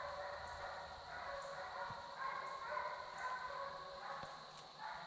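Deer-hunting hounds baying, several voices overlapping in drawn-out calls as the pack runs a deer's trail.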